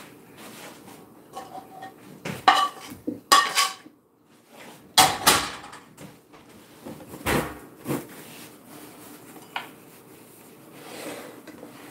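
A fork scraping and clinking against a skillet and serving plate, with several sharp metal clatters, then the pan set down on the stovetop with a clunk. It goes quieter in the last few seconds.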